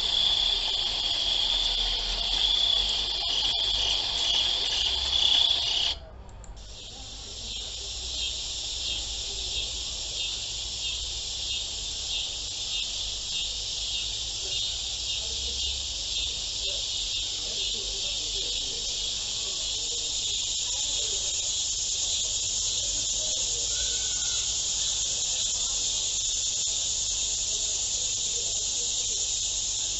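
A steady, high-pitched chorus of chirping insects with a fine pulsing texture. About six seconds in it cuts off abruptly, then resumes at once a little quieter and with a different texture, as at a splice in a looped ambience track.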